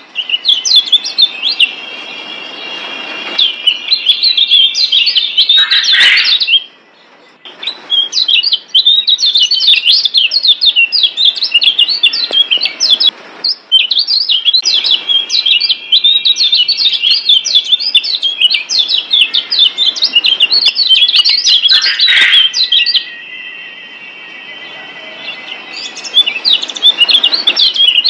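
Kecial kuning (Lombok yellow white-eye) singing a fast, continuous chattering song of high chirps. Near the middle and again later there are short pauses and stretches of a steady high trill. It is a masteran recording, song played to get a quiet caged kecial singing.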